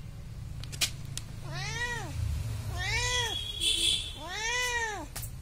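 Domestic cat meowing three times, each meow rising and then falling in pitch, with a short noisy burst between the second and third meows.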